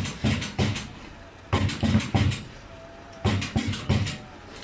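Single-spot welding machine welding crossing wires of cage mesh, each weld a short sharp crackle of sparks. The welds come in three quick groups of about four, roughly one group every second and a half.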